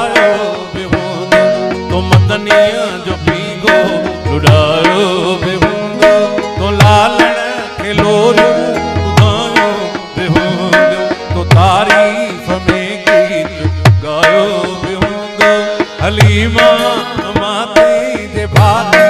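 Instrumental interlude of live Sindhi devotional folk music: tabla keeping a steady rhythm under a wavering keyboard melody, with no singing.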